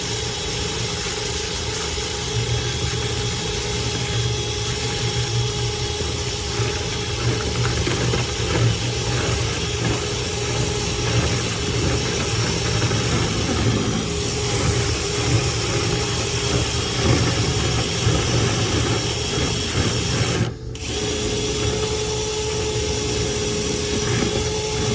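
Power drill running steadily, spinning a rotary brush rod through a clogged dryer vent duct, with a brief stop about twenty seconds in before it starts again.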